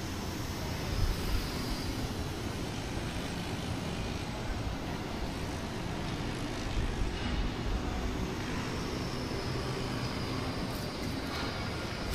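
Steady outdoor background noise with an uneven low rumble.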